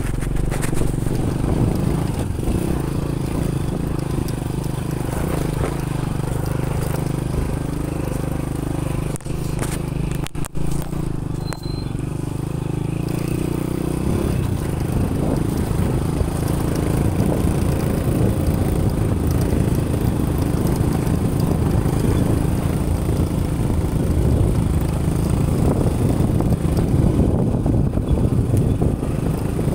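Motorcycle engine running as the bike rides along a rough dirt track. Steady for the first half; from about halfway through the sound turns rougher and noisier, with a couple of brief dips just before that.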